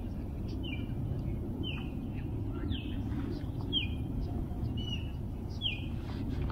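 A bird calling from the shoreline woods, one short falling note repeated about once a second, over a low steady rumble.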